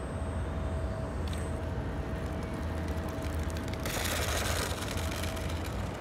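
Electric motor and propeller of an RC F4U Corsair warbird humming steadily at low throttle on landing approach, with a short burst of rolling noise about four seconds in as the wheels touch down on concrete. A steady low rumble underlies it.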